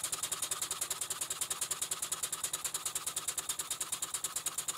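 Stuart 5A model steam engine running steadily on compressed air, a quick even beat of about eight strokes a second, with its crankshaft-driven mechanical lubricator now working.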